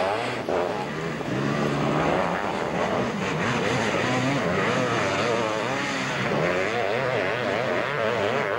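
Engines of motocross sidecar outfits racing on a dirt track, several at once, revving hard and easing off over and over.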